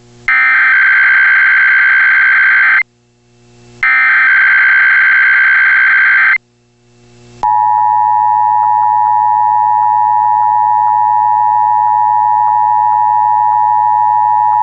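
Emergency Alert System SAME header: two bursts of screeching digital data tones, each about two and a half seconds, with a second's gap between, encoding a Required Weekly Test. About seven seconds in, the steady EAS two-tone attention signal starts and holds.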